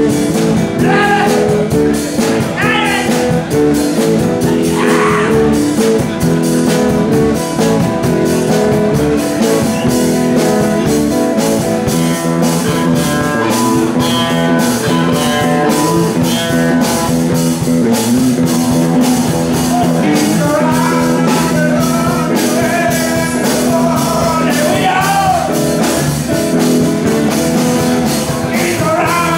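Live rock band playing a blues-rock cover in a bar, over a steady beat, with a singer's voice coming in near the start and again in the last third.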